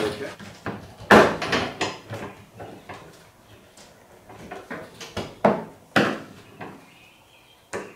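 Knocks and clunks of tow-behind sprayer parts being handled and set down during assembly: a sharp knock about a second in, two more around five and six seconds in, and lighter taps between.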